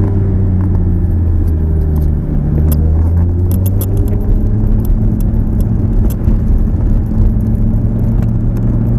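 Lamborghini Gallardo's V10 engine running at low speed, heard from inside the cabin, its note dipping about two seconds in and rising again past halfway. Scattered light clicks and rattles come in around the middle.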